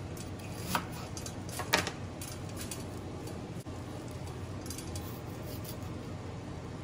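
Kitchen knife cutting a fresh ginger root on a plastic cutting board: two sharp knocks about a second apart near the start, then faint taps, over a steady low hum.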